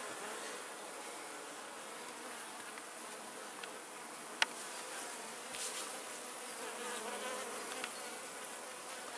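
Honeybees buzzing steadily in an opened hive, a wavering hum of many bees at once. A single sharp click comes about four and a half seconds in.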